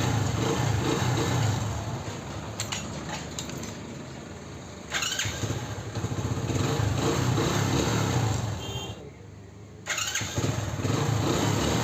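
Hero HF Deluxe's single-cylinder four-stroke engine started on the electric self-starter and running. It dies down and is started again, catching suddenly about five seconds in and again near the end. The starter motor, fitted with new carbon brushes, is cranking properly again.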